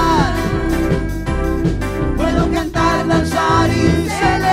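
Church worship band playing a Spanish-language praise song, with singing over a steady drum beat and bass.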